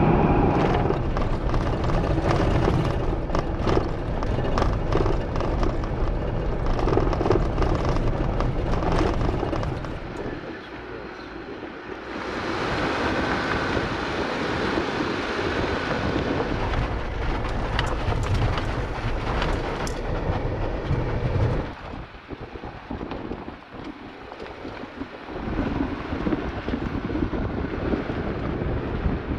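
Jeep Wrangler driving, heard from inside the cab: steady road, tyre and wind noise, with scattered rattles. It drops away briefly about ten seconds in and again a little after twenty seconds.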